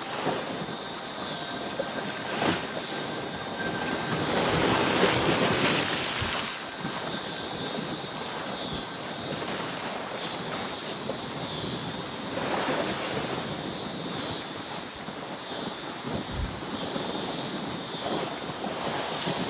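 Steady outdoor rushing noise, swelling louder from about four to six and a half seconds in, with a lesser swell around twelve seconds.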